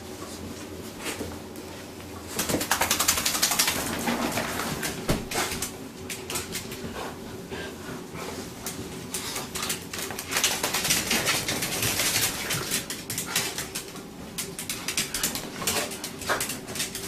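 Towel scrubbing over a wet Lhasa-Poo being dried: bursts of scratchy rubbing and rapid clicking scuffles, loudest about two to four seconds in and again around ten to thirteen seconds in.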